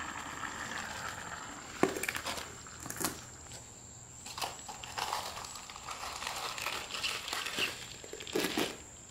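Crinkling of a foil-wrapped cozy as a stainless steel cup is lifted off an alcohol stove and set into it, with a few sharp knocks of metal, the loudest about two seconds in.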